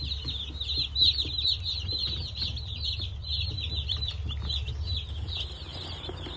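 A brood of Cornish Cross baby chicks peeping together: a dense, continuous chorus of short, high, falling peeps, over a steady low hum.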